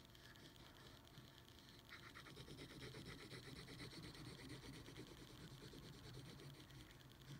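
Faint scratching of a pencil on sketchbook paper: quick, repeated back-and-forth hatching strokes, starting about two seconds in.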